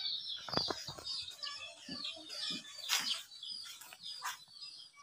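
Small birds chirping and chickens clucking, with a few sharp knocks about half a second, three seconds and four seconds in.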